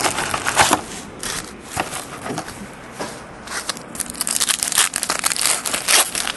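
Plastic wrapping of a sealed trading-card box and then a foil trading-card pack being crinkled and torn open by hand. The wrapper crackles in quick irregular rips that grow dense in the last few seconds.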